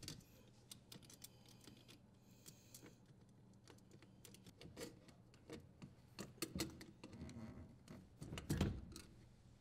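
Faint scattered clicks and rubbing from a strain relief nut being threaded and tightened by hand onto the power wires at a dishwasher's terminal box, with the clicks growing busier in the second half.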